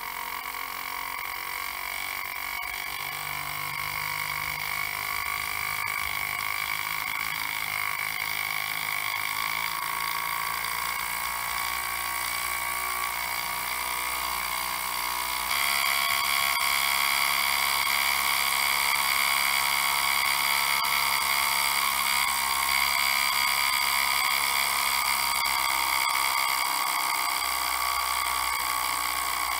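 Miniature steam engine running fast on steam from its small boiler, a steady high-pitched whine that gets louder about halfway through.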